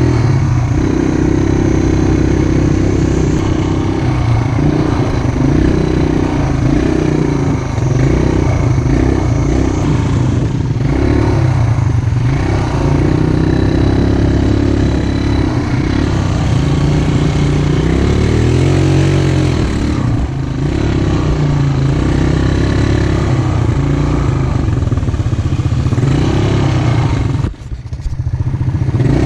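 ATV (quad bike) engine running under way, heard from on board, its pitch rising and falling with the throttle. Near the end it briefly drops off, then picks up again.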